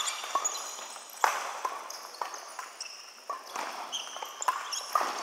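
Badminton rally: sharp racket strikes on the shuttlecock, the loudest about a second in, with shoes squeaking in short high chirps on the court floor.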